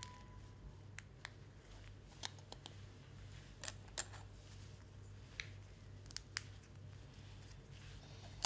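Small plastic model-kit parts being handled and set down on a cutting mat: scattered light clicks and taps over a faint, steady low hum.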